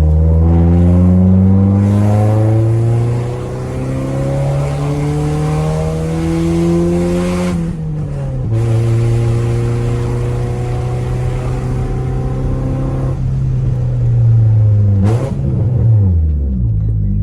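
Honda Civic EJ6 engine pulling hard, its pitch rising steadily through a gear. About eight seconds in it breaks off with a gear change and climbs again. Near the end the engine eases off, with a quick drop and rise in pitch as it changes gear again.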